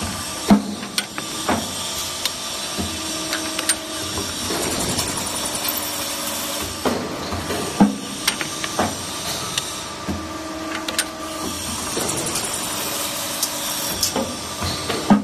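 Double-end chamfering machine running, a steady hum with a whine over it. Pairs of sharp knocks about a second apart come near the start and again about halfway through, repeating roughly every seven seconds.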